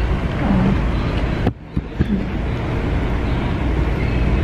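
Steady low rumbling background noise, like traffic or a vehicle, with a short drop about a second and a half in.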